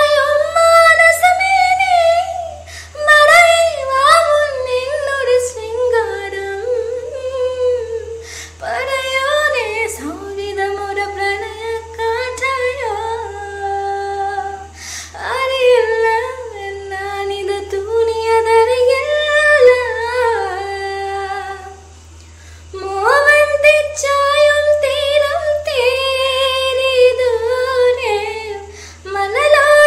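A woman singing a song solo. Only her single voice is heard, with no instrument, and there is a short pause for breath about three-quarters of the way through.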